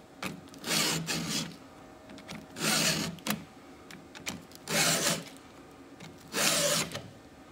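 Stihl 2-in-1 file guide pushed across the cutter teeth of a chainsaw chain: four rasping file strokes, each about half a second long and about two seconds apart. Each stroke sharpens a cutter and lowers its depth gauge (raker) at the same time.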